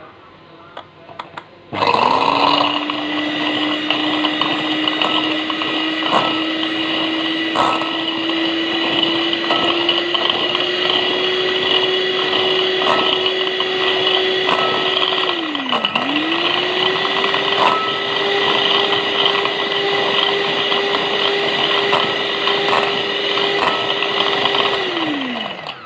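Electric hand mixer running, its beaters whipping a still-thin mix of instant coffee, sugar and hot water in a glass bowl. The motor whine starts about two seconds in and climbs a little. It winds down just past the middle, starts straight up again, and winds down near the end, with scattered ticks throughout.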